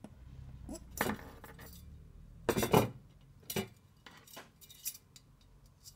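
Metal bicycle spokes clinking against the hub and rim as they are threaded in while lacing a spoked wheel. Several separate light metallic clinks, the loudest about two and a half seconds in.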